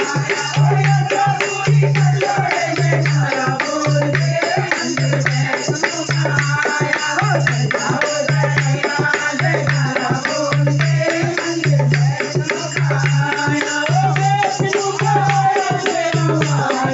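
Instrumental interlude of a devotional folk song: a steady low drum beat about twice a second under busy, quick high percussion and a winding melody line.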